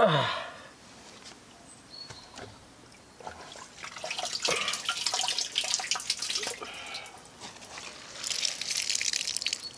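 Water dripping and splashing inside a buried plastic drum as a wrapped bundle is lifted out of the water that had leaked in, in two spells, with a short sound falling in pitch right at the start.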